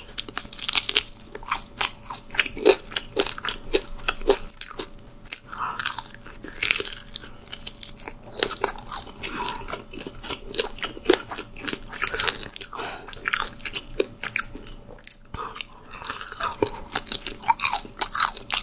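Crispy seasoned fried chicken drumstick being bitten and chewed close to the microphone: a long run of sharp crunches from the fried coating, with chewing between them.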